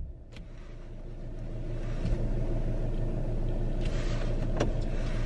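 Car engine and road noise heard from inside the cabin, starting quiet and building over the first few seconds as the car pulls away, then running steadily. There are a couple of faint clicks.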